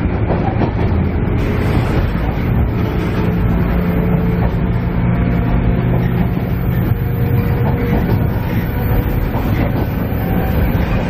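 Cabin running noise of a JR East KiHa E130 diesel railcar under way: a steady low engine drone over wheel and rail rumble, with a few sharp clicks from the track.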